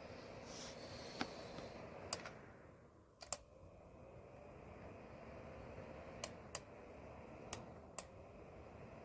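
Faint, steady hum of a small ceramic space heater's fan running quietly, with about seven sharp, light clicks scattered through.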